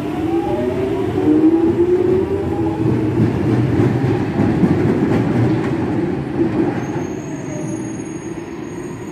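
A London Underground 1996 Stock Jubilee line train pulling out of the platform. Its traction motors whine upward in pitch as it accelerates over a rumble of wheels on rail, and the sound fades away near the end as the train leaves.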